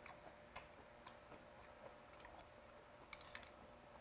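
Near silence with faint eating sounds: scattered light clicks of metal chopsticks against small dishes, and quiet chewing.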